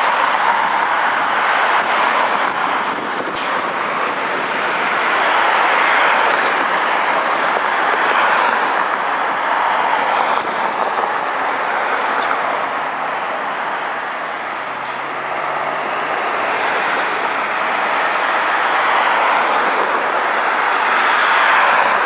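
Steady road-traffic noise of tyres and engines, with a 2002 Blue Bird CS transit bus and its Cummins ISC diesel engine driving past and pulling away in the second half.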